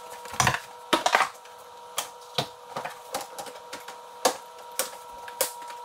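Irregular sharp knocks and clicks, about eight in all, of parts and tools being handled as the exhaust pipe is swapped on a snowmobile, over a faint steady hum.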